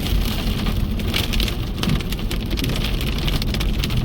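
Hail and heavy rain pelting a car, a dense, steady patter of countless small hits on the bodywork.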